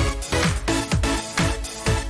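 Background electronic dance music with a steady four-on-the-floor kick drum, about four beats a second.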